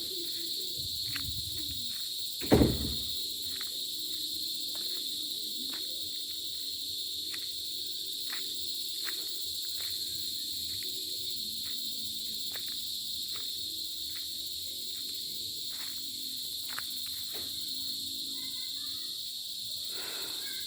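Night insect chorus, a steady high-pitched trilling of crickets. A single loud thump comes about two and a half seconds in, and faint clicks are scattered throughout.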